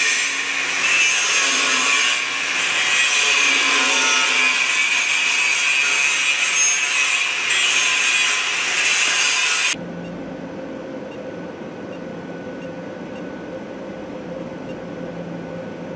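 Power tool working metal: a loud, steady, high-pitched hissing noise that cuts off abruptly about ten seconds in, leaving a quieter steady shop hum.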